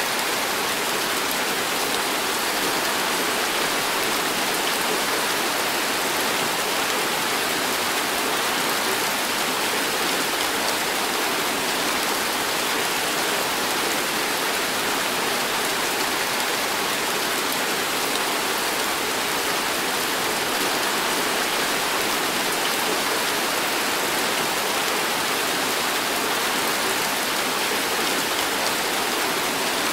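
Heavy tropical downpour: rain falling steadily as a dense, even hiss that does not let up.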